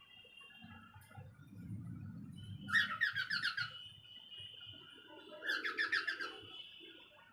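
Pet parrots calling: two bursts of rapid, repeated chirps about three seconds apart, with a thin, steady high whistle held underneath them.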